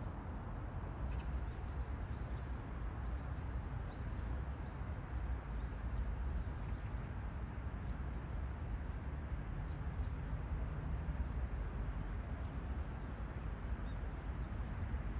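Outdoor ambience: a steady low background rumble, with faint, short bird chirps scattered throughout.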